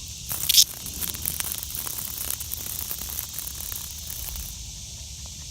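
A disturbed cicada giving its distress buzz: a sudden loud, harsh burst about a third of a second in, then a crackly, rasping buzz that dies away about four and a half seconds in.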